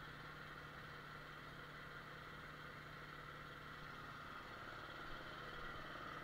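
Air compressor running steadily and fairly faintly, a constant low hum with a higher whine above it, getting a little louder near the end.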